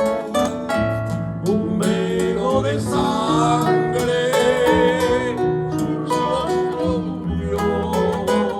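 Praise song played on plucked string instruments, with a melody line that slides in pitch from about two to five seconds in.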